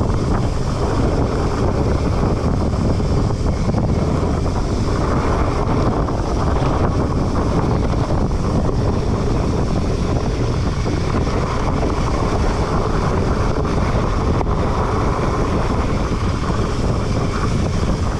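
Steady wind rushing over the microphone of a fast-moving mountain bike, mixed with the rolling noise of a Trek Farley fat bike's tyres on a dirt trail.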